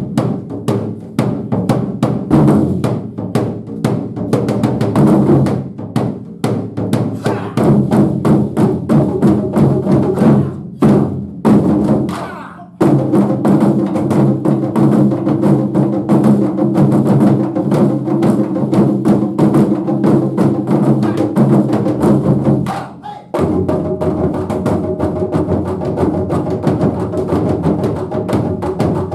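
Japanese taiko drum ensemble playing dense, rapid strokes over a low ringing tone, with two short breaks, about twelve seconds in and again near twenty-three seconds.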